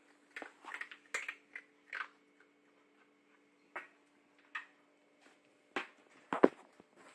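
A kitten's claws and paws ticking and tapping on a hard tiled floor in scattered light clicks, with one louder knock about six and a half seconds in. A faint steady hum lies underneath.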